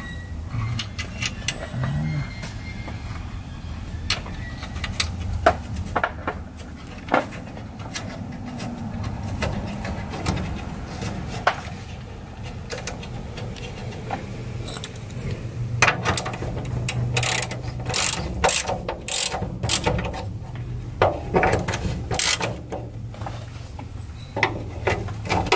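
Socket ratchet wrench clicking in quick runs as a bolt on the bay door's strut bracket is tightened; the dense ratcheting starts a little past halfway, after a stretch of scattered metallic clicks and handling noises.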